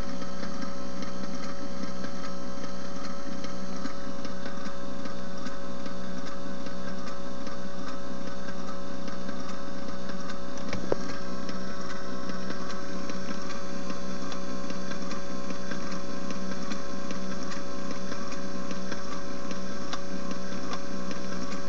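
Southern Vehicle Products pancake rotating beacon running: its small electric motor and reflector drive make a steady mechanical whir and hum. A single click comes about eleven seconds in.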